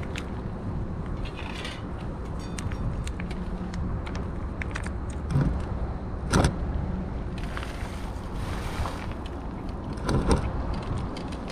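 Cat eating wet food from a steel dish: chewing and licking with scattered clicks and a few louder knocks against the metal, over a steady low background rumble. Near the start, food is squeezed from a pouch onto the dish.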